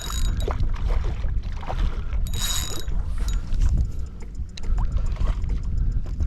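Fishing reel being worked against a hard-fighting fish, its gears and drag ratcheting, over a steady low rumble.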